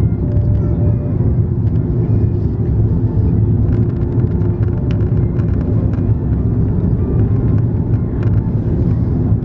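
Steady cabin noise inside an Airbus A330-300 on approach with its flaps extended: a deep, even rumble of its engines and the airflow, with a steady hum running through it.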